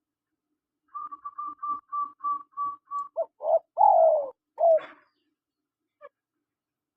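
Spotted dove calling: a quick run of short, even-pitched notes, then several louder, lower coos, the longest one falling in pitch about four seconds in.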